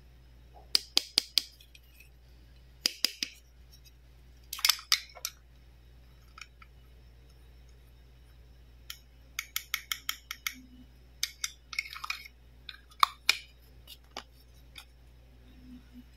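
Small plastic toy medicine bottle and its stopper being handled: sharp clicks and taps come in quick clusters of a few at a time, with short pauses between, as the stopper is worked in and out of the neck.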